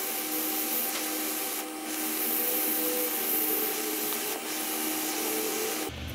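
A metal blade scraping old solder and residue off the pads of a BGA chip: a steady rasping scrape with short breaks about 1.7 and 4.4 seconds in.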